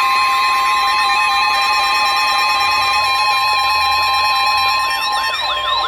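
Emergency alert tone of a weather-radio broadcast: a loud, steady high alarm tone layered with other held tones and repeating sweeping, siren-like glides, which grow stronger near the end. It signals an incoming severe thunderstorm warning.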